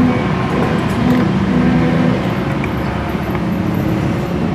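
Yamaha Mio Z scooter engine running steadily with its CVT cover removed.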